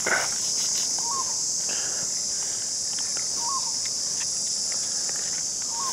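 Steady high-pitched chorus of insects, the loudest and most constant sound, with a short bird chirp heard about three times.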